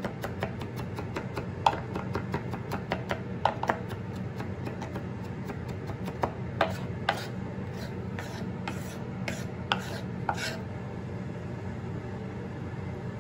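Kitchen knife mincing garlic on a wooden cutting board: quick taps of the blade against the board, several a second at first, then thinning out and stopping a few seconds before the end.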